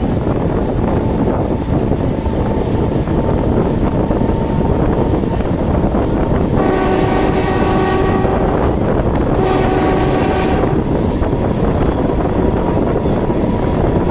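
Train horn sounding two blasts about halfway through, the first about two seconds long and the second a little shorter, over the steady rumble of the moving train and wind on the microphone.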